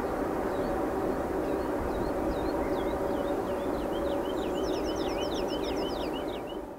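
ST44 (Soviet Kolomna M62-type) diesel locomotive with its two-stroke V12 engine, a steady low drone as it hauls a freight train away down the line. Small birds sing over it, more and more densely as it goes. The sound fades out at the very end.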